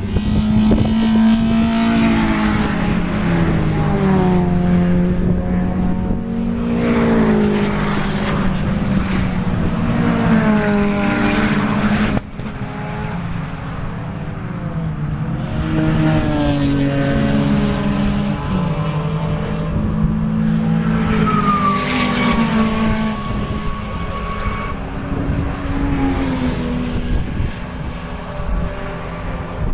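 MG ZS 180's V6 engine, fitted with an ITG Maxogen intake and a full Janspeed exhaust, revving hard on track: its pitch climbs and drops repeatedly through gear changes. About twelve seconds in the sound cuts abruptly to a somewhat quieter run of the same engine.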